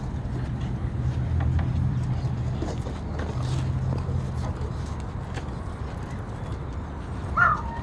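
Steady low machine hum, with a short high puppy whine near the end.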